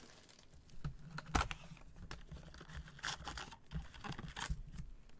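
Foil trading-card packs handled by gloved hands as a stack is lifted out of the box: scattered light taps, clicks and crinkles, the sharpest knock about a second and a half in.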